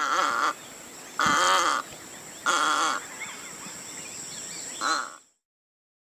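Egret calling: four short calls, each about half a second long and spaced a little over a second apart, with fainter chirps of other birds between them. The calls stop about five seconds in.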